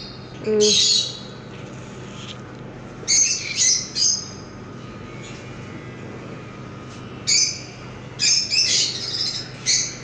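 Lovebirds squawking in short, shrill bursts of calls, a few scattered groups with a busier run of calls near the end.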